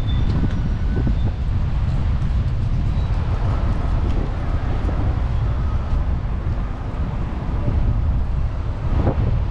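Steady road-traffic noise with a low rumble of wind on the microphone.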